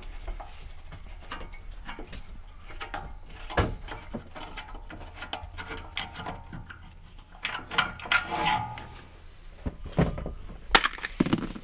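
Red-handled T-handle hex key turning a bolt in a metal seat-pan bracket, with many small metal clicks and scrapes. There are several louder knocks near the end.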